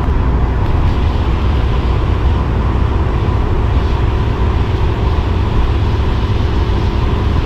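Steady low rumble of road and engine noise from a vehicle on the move, heard from inside the cabin.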